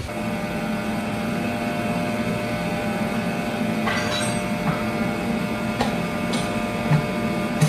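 Band sawmill's electric drive running at a steady hum, not cutting. A few light knocks and clicks in the second half.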